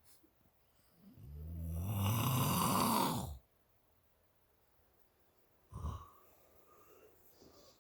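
A sleeper snoring: one long, loud snore lasting about two seconds that builds up and stops abruptly. A short, quieter sound follows a couple of seconds later.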